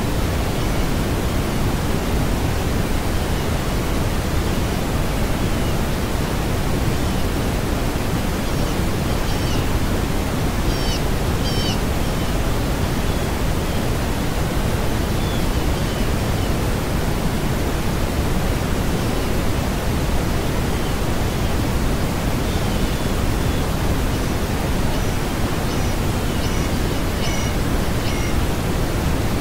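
A steady, even hiss of noise, like rushing water, with faint short high chirps now and then, in clusters around ten seconds in and near the end.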